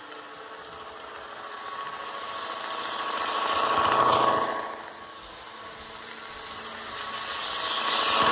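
Model FA diesel locomotive with a DCC sound decoder running along the track, its small onboard speaker playing diesel engine sound over the wheel and motor noise. It swells as the locomotive passes close about four seconds in and again near the end. The speaker sounds like it is clipping a little.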